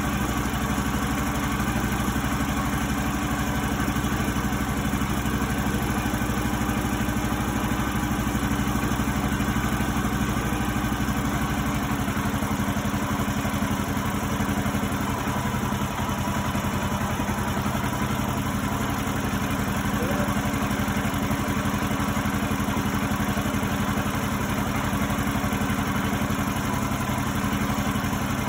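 Kohler single-cylinder engine on a Woodland Mills HM130Max sawmill idling steadily while it warms up after a cold start. About twelve seconds in, the engine note changes.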